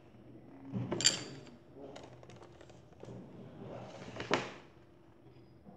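A paper picture book being handled and laid down on a tabletop: rustling and light knocks, with a sharp tap about a second in and a louder rustle or scrape just after four seconds.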